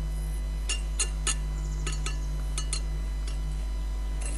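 Steel bricklaying trowel clinking and scraping against brick and mortar while pointing the joints of a face-brick course: about eight light, sharp metallic clinks, unevenly spaced.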